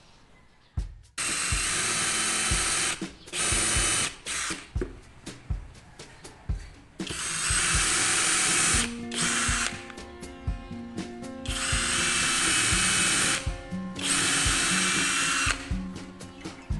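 Lotus 18 V brushless cordless impact drill running in seven short bursts of half a second to two seconds, stopping and starting. Background music with a steady beat plays under it.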